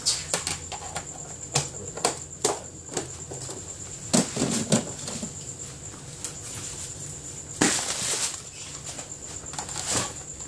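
Hard plastic food containers knocking and rustling as they are handled on the shelves of an open upright freezer: scattered clicks and knocks, with a longer rustle about eight seconds in, over a steady low hum.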